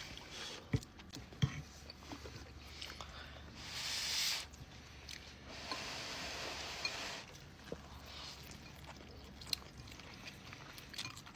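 People eating Pad Thai noodles: chewing and biting, with a few sharp clicks near the start and two longer noisy swells in the middle.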